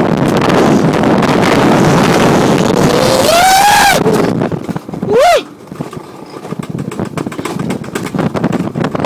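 Alpine coaster sled running fast along its rails, with wind on the microphone. About three seconds in, a rider lets out a long whoop that rises and falls in pitch, and a short yelp follows a little over a second later. After that the run goes quieter, with a light rattle.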